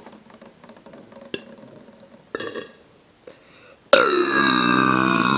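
A woman's long, loud burp that starts suddenly about four seconds in, its pitch dipping and then rising. Faint small clicks come before it.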